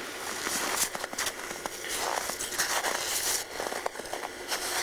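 Irregular crunching and crackling of someone moving through snowy brush: footsteps in snow with twigs brushing and snapping against clothing.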